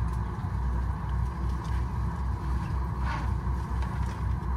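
Steady low rumble and hum inside a Boeing 737 MAX 8 cabin while it is parked for boarding, with faint brief knocks or rustles.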